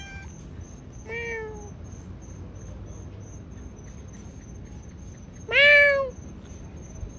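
Domestic cat meowing twice: a short meow about a second in, then a much louder, longer meow about five and a half seconds in.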